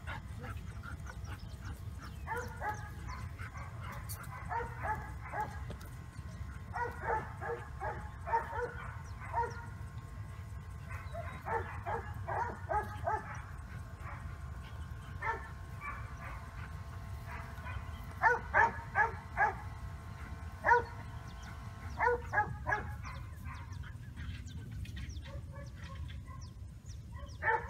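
A dog barking and yipping in quick runs of short, high calls, loudest in a burst about two-thirds of the way through, over a steady low background noise.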